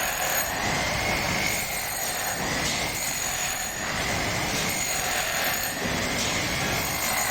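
Power drill running continuously into a floor, its high motor whine dipping and recovering in pitch about once a second or so over a steady grinding noise.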